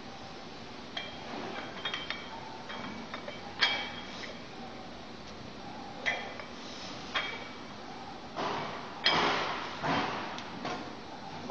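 Metal gym weights clinking and knocking: short, sharp strikes with a brief ring, scattered every second or so. A few louder hissing swells come about two-thirds of the way through.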